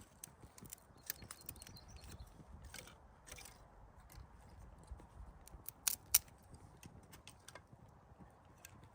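Scattered light clicks and taps over a faint hiss, with two sharper, louder clicks in quick succession about six seconds in.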